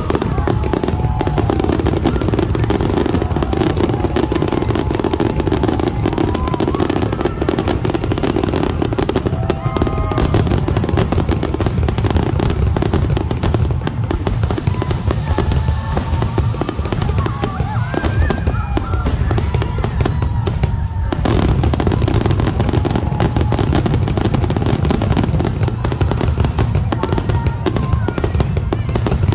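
Aerial fireworks going off in a rapid, nearly continuous barrage of booming bursts and crackle.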